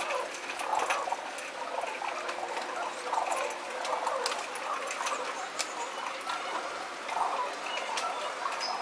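Feral pigeons feeding on a concrete window ledge: irregular coos and scuffling, broken by scattered sharp taps of beaks and feet on the ledge.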